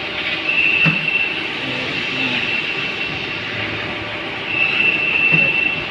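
Machine-shop machinery running with a steady mechanical hum and a high-pitched whine that comes and goes in stretches of about a second. There are two faint knocks, one about a second in and one near the end.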